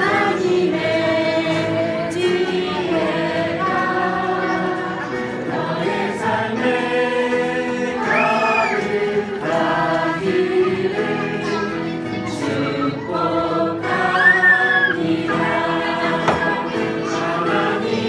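A mixed group of men and women singing a Korean Christian blessing song together, choir-style.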